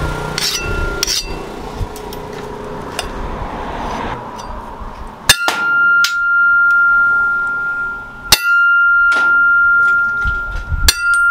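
Leaf-spring steel cleaver chopping at a thin steel rod on an anvil: several sharp metallic clangs, each strike followed by a high ringing tone that carries on through the second half.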